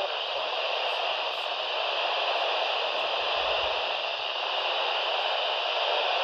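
Steady radio static hiss from a weather radio receiver, with no voice coming through.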